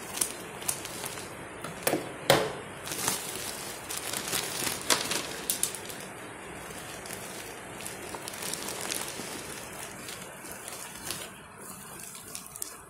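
Black plastic courier mailer bag crinkling and rustling as hands handle and pull it open, with sharp crackles. The loudest crinkles come about two to five seconds in, then the handling grows quieter.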